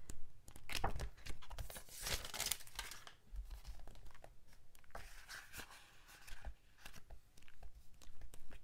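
Stiff pages of a sticker book being turned and handled: paper sheets rustling and crinkling, loudest about one and two seconds in, with lighter crackles as later pages are flipped.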